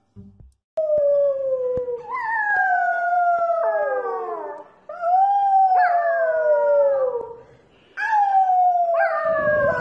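Small dog howling in several long drawn-out notes, each sliding down in pitch, with short breaks between them.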